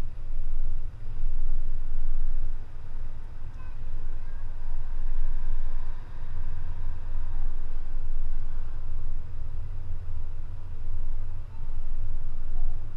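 Low rumble of a car driving along a paved road, mostly road and wind noise, swelling and easing in loudness.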